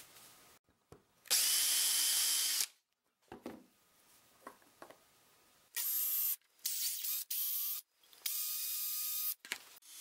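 Cordless drill with a 1/8-inch bit boring into a golf ball, run in separate bursts with a steady whine. The first burst lasts about a second and a half; several shorter ones follow later, and each starts and stops abruptly.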